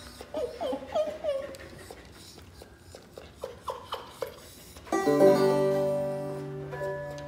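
An Australian Shepherd whining in several short rising-and-falling cries, upset by the banjo. About five seconds in, a five-string banjo chord is strummed and rings out, slowly fading.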